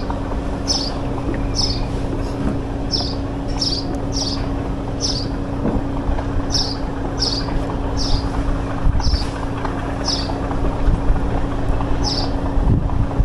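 A bird chirping over and over, short falling chirps about once a second, over a steady engine hum and wind noise on the microphone.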